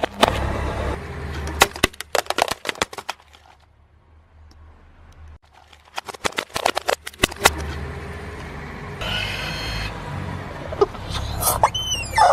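Car tyre rolling slowly over a tray of candy balls, a rapid run of sharp cracks and pops as they burst, over a low engine rumble; a few seconds later plastic party horns crack and snap under the tyre, and a brief buzzing tone sounds. Near the end a rubber chicken starts to squeal under the tyre, falling in pitch.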